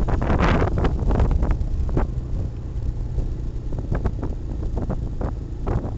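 ATV engine running steadily while riding, with wind buffeting the microphone and scattered rattling knocks, thickest in the first two seconds.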